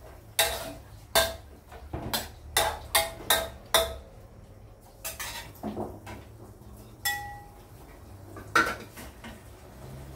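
Metal ladle clinking and knocking against a metal wok while stirring soup: a quick run of about seven sharp clinks in the first four seconds, a few softer ones, then a clink that rings briefly and one last knock.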